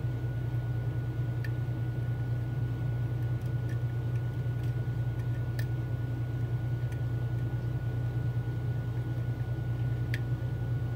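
Faint, scattered light clicks of a pick and tension wrench working the pins of a Mul-T-Lock Interactive dimple lock, over a steady low hum and a thin steady high tone.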